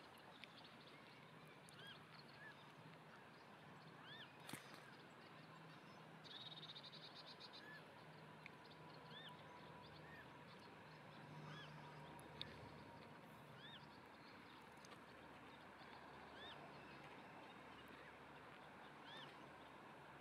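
Faint, short, high peeping calls repeating about once a second, the begging calls of a newly hatched red-necked grebe chick at the nest, with a brief rapid rattling trill about six seconds in.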